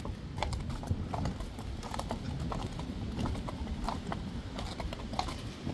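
Hooves of several Friesian horses walking on a concrete yard: an irregular clip-clop of overlapping hoofbeats, over a steady low rumble.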